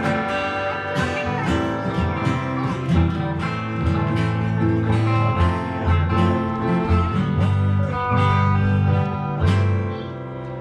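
Acoustic guitar played live with a strummed rhythm in a country-style tune, over steady low notes. The playing falls quieter near the end.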